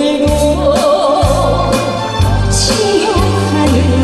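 A song sung live over a backing track: a wavering sung melody over a steady bass-and-drum beat.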